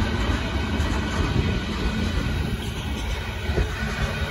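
Union Pacific limestone train's open-top hopper cars rolling past at a grade crossing: a steady, loud rumble and clatter of steel wheels on the rails.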